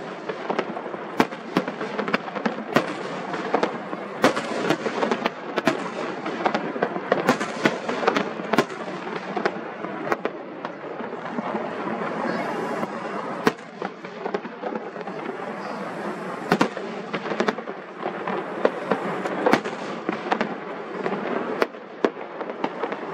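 Fireworks display going off: a continuous crackle of bursting shells with many sharp bangs, often several a second.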